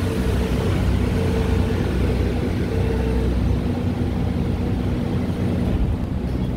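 Nissan March windshield washer pump motor running with a steady hum while no water sprays from the nozzles, over a steady low rumble.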